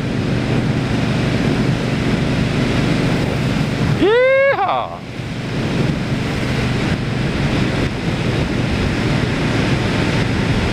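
Wind rushing over a helmet-mounted microphone on a motorcycle with no windshield, with the engine running steadily underneath. About four seconds in there is a brief, high, rising sound.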